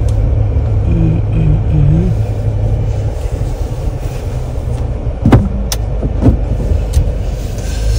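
Steady low rumble of a car's engine and road noise heard from inside the cabin while driving, with three short, sharp clicks a little past the middle.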